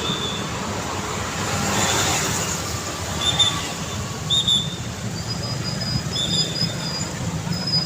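Busy road traffic: engines running in a steady low rumble, one vehicle passing about two seconds in, and several short high-pitched squeals in the second half.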